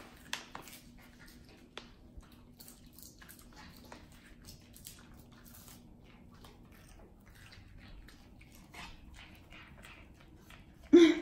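Small maltipoo eating: faint, irregular crunching and clicking of chewing. A short, louder vocal sound comes just before the end.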